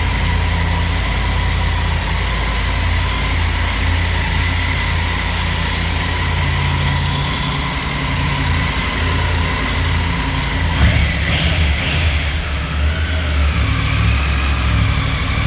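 Triumph Tiger 900 Rally motorcycle's three-cylinder engine running steadily at idle, with a short burst of hiss about eleven seconds in.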